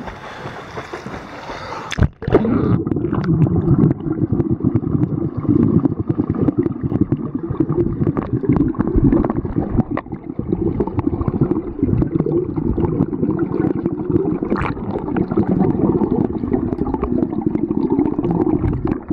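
Water heard through a camera microphone held under water in a swimming pool: a dense, muffled low rumble and gurgling with many small clicks of water and bubbles. A lighter above-water hiss gives way to it sharply about two seconds in, as the camera goes under.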